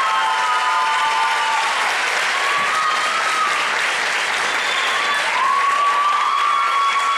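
Audience applauding, with long high voices calling out over the clapping several times.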